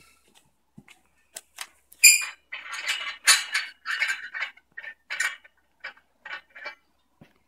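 Chrome wall plate being twisted off by hand from the end of a shower curtain rail: a metallic clink about two seconds in, then a run of short squeaks and scrapes of metal turning on metal.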